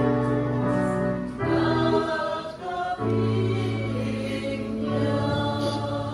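Choir singing a slow hymn, each note held for a second or more.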